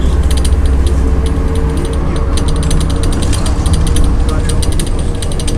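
Inside a moving MAZ-105 city bus: steady low engine and road rumble with a held whine, overlaid by rapid, irregular clicking rattles from loose cabin fittings.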